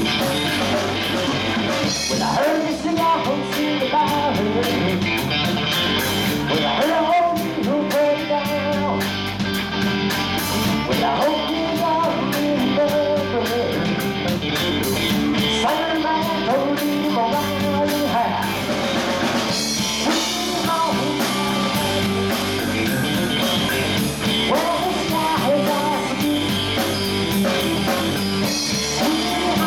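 Live rock band playing loudly: electric guitar through an amplifier, bass guitar and drum kit.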